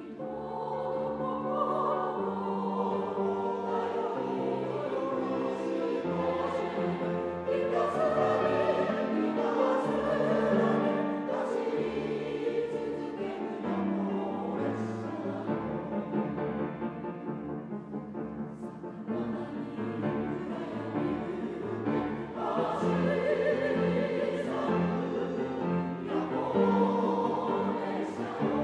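Mixed choir of men's and women's voices singing with grand piano accompaniment.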